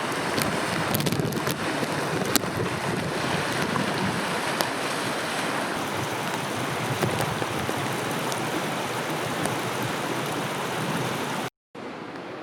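Floodwater rushing steadily, mixed with wind on the microphone and a few faint sharp ticks. The sound cuts out briefly near the end and returns as a quieter rush.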